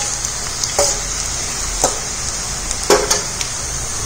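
Dried red chillies and garlic sizzling in hot oil in a stainless steel kadai: a steady frying hiss, with a few sharp clicks about a second apart.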